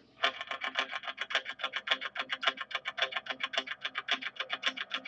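Music with a fast, evenly picked plucked-string rhythm of about nine notes a second. It starts suddenly just after the beginning.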